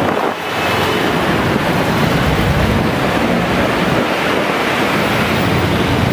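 Steady, loud din of heavy street traffic, with a brief dip just after the start.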